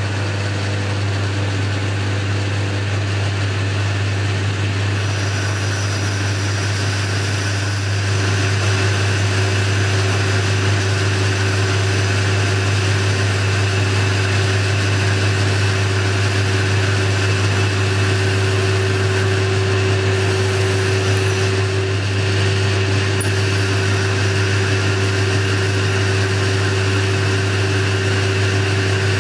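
Boxford lathe running steadily with a low motor hum while turning a small pin; a steady higher tone joins about eight seconds in.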